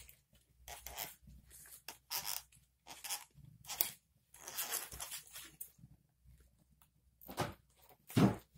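Cleaning rod with a clean cloth patch being worked through an air rifle's rifled barrel: a run of short scraping, rubbing strokes as the patch wipes out the oil and loosened rust. A louder knock near the end.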